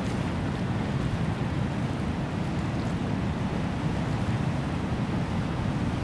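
Ocean surf breaking on a rocky shore: a steady wash of waves with a deep rumble underneath.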